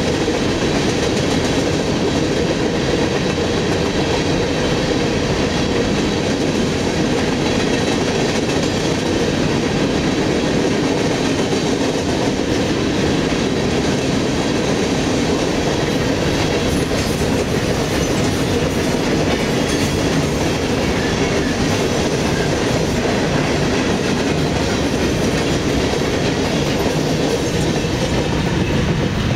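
Freight cars of a passing CSX train rolling by, their steel wheels on the rails making a steady rumble and clatter.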